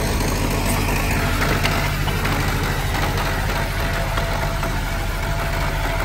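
Heavy diesel engine running steadily, with a constant even drone.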